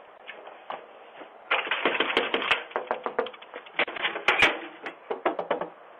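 Rapid, irregular clicking and knocking: a few scattered clicks, then about a second and a half in a dense clatter that runs until near the end, loudest just past the middle.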